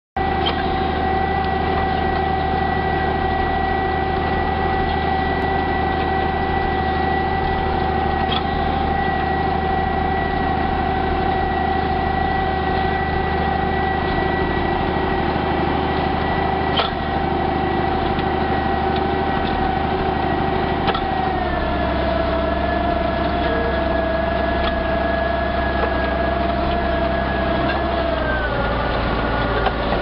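Farm tractor engine running steadily under load while pulling a plough through grass ley, with a steady high-pitched whine over the engine hum. The pitch drops slightly about two-thirds of the way in and again near the end.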